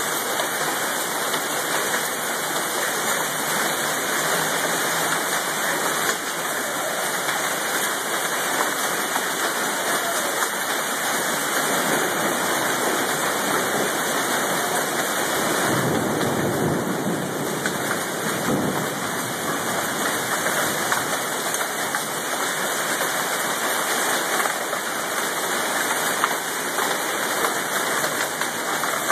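Hail mixed with heavy rain falling, a steady dense hiss that swells briefly a little past the middle.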